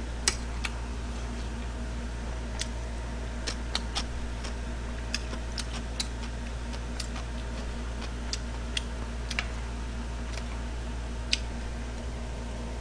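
Eating at a table: scattered short clicks of a fork against a plate and mouth sounds, irregularly spaced, over a steady low hum.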